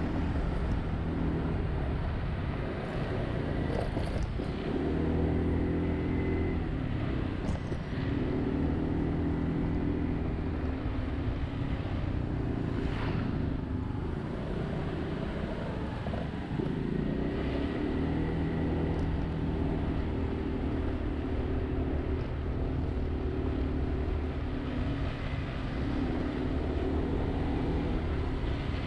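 Honda Zoomer-X scooter's single-cylinder four-stroke engine running in city traffic, its note rising and falling with the throttle every few seconds, over steady road and traffic noise.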